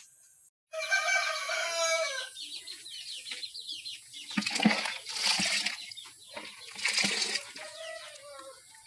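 A rooster crows once, about a second in. Then wet pig feed in a plastic bucket sloshes and scrapes in several bursts as a plastic bowl stirs and scoops it to mix in deworming powder.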